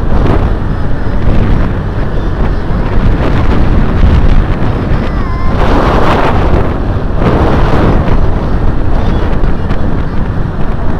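Heavy wind buffeting the microphone of a moving motorbike, a loud, steady rumbling rush, with stronger gusts about six and seven and a half seconds in.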